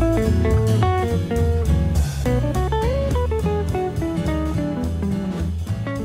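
Instrumental background music: a plucked guitar melody moving in short stepping notes over a steady bass line.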